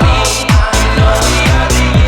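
Background electronic dance music with a steady four-on-the-floor kick-drum beat, about two beats a second, and sustained synth chords.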